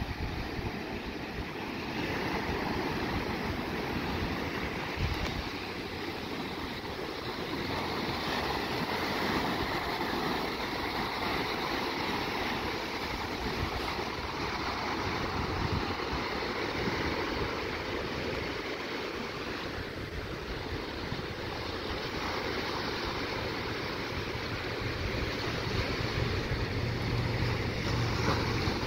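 Ocean surf breaking and washing over the shallows in a steady rush, with wind buffeting the microphone.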